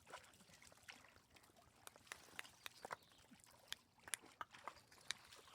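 Faint, irregular sharp clicks and taps, about a dozen spread unevenly, over a quiet background.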